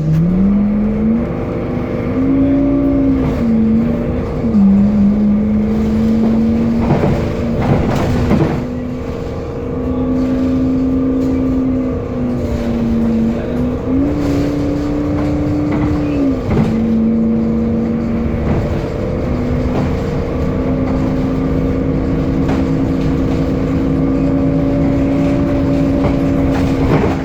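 Temsa Avenue LF city bus with a DAF engine and ZF Ecolife six-speed automatic gearbox under way. Its strong, unusual whine rises in pitch as the bus speeds up and drops back at each gear change, several times over. A few short knocks and rattles come about a third of the way in.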